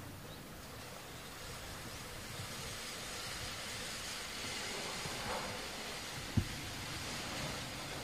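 Steady hiss of outdoor background noise, swelling slightly partway through, with a single sharp click about six and a half seconds in.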